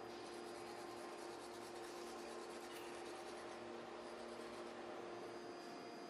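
Hand tyre stitcher rubbing back and forth over cushion gum rubber inside a tyre, a faint rasping rub over a steady low hum.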